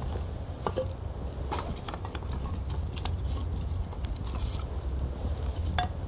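Wood campfire of stacked kindling sticks burning, with scattered sharp crackles and pops over a steady low rumble; the loudest pops come just under a second in and near the end.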